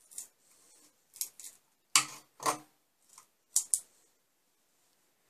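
A flat scraper prying a 3D-printed plastic part off the printer's bed: scraping and clicking, with two loud cracks about two seconds in as the print breaks free, and a couple of sharp clicks after.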